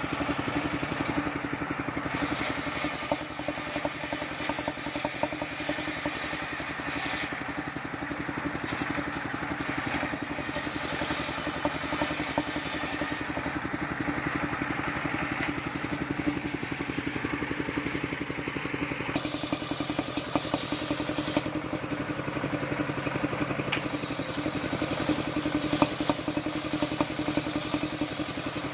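Truck-mounted mobile sawmill running: the engine drives a large circular saw blade at a steady speed while it rips a waru (sea hibiscus) log into roof battens. The higher cutting hiss rises and eases several times as the blade takes and leaves the wood.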